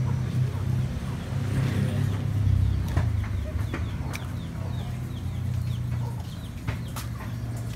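Chickens clucking now and then over a steady low hum, with a few sharp clicks.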